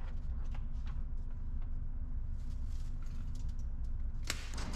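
Steady low hum with a few faint clicks. Near the end comes a sharp snap, then rustling, as the paper target is handled at the target carrier's clip.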